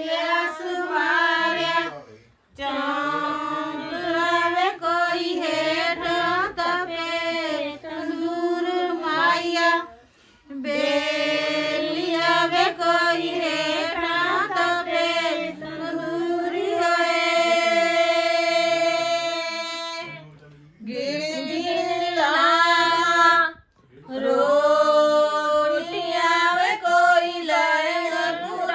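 Several women singing a Punjabi suhag, a traditional bride's-side wedding folk song, together in long phrases broken by short pauses for breath, with no instruments heard.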